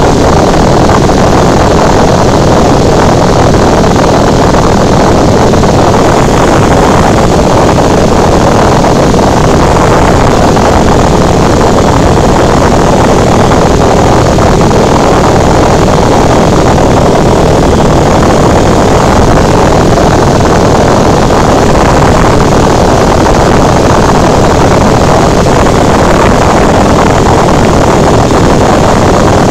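Cessna 172's piston engine and propeller running steadily in cruise flight, heard loud inside the cabin. There is no change in power or pitch.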